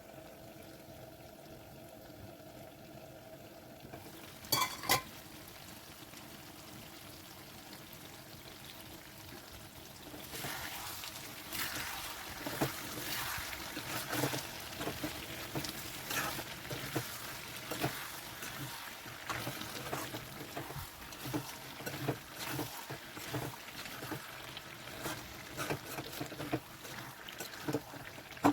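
Pumpkin sabzi being stirred in a cooking pan: a spoon scraping and clicking against the pan in quick, irregular strokes from about a third of the way in. Before that there is only a faint steady hum with a couple of sharp clicks.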